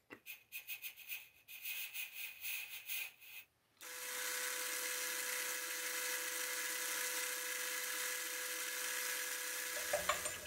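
Hafco AL250G lathe starting suddenly about four seconds in and running steadily, a whir with a held hum, while abrasive paper is held against the spinning hardened steel centre to polish it. Before it starts there is only faint, irregular crackling.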